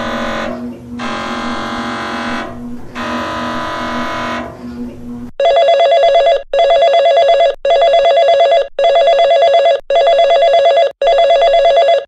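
Emergency Alert System test signal: three buzzing header bursts, each about a second long. From about five seconds in, a loud alert tone pulses on and off roughly once a second.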